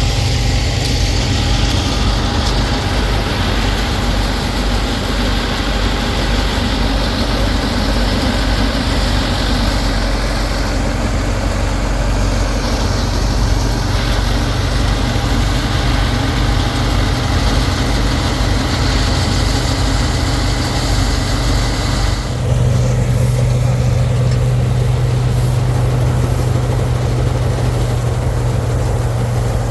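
Combine harvester running steadily, its engine hum mixed with the noise of the harvesting machinery. About three quarters of the way through the sound changes abruptly, the low hum becoming stronger and the higher noise dropping away.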